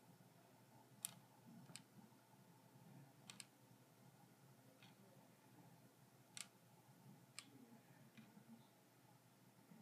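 Mexican jumping beans twitching and rocking on a hard tabletop: sparse, faint clicks at irregular intervals, about eight in all, two of them close together a little past three seconds in. Each click is a seed capsule jolted against the table by the moth larva moving inside it.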